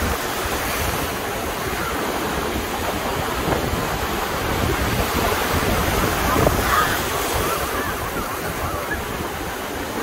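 Ocean surf breaking and washing in among wooden pier pilings: a steady rush of waves, swelling to a louder surge about six and a half seconds in.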